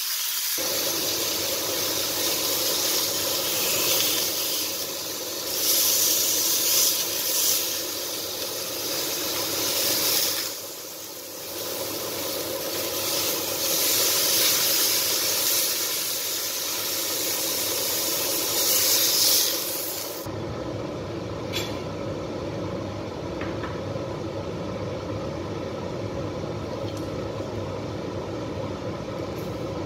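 Sirloin steaks sizzling as they sear in a hot frying pan, a steady hiss that swells and dips as they are moved. About two-thirds through the sizzle turns duller and steadier, with a couple of light clicks.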